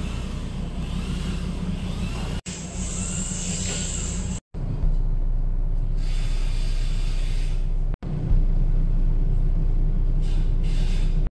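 Passenger speedboat's engine running with a low, steady rumble, louder after about four and a half seconds and broken by a few abrupt cuts.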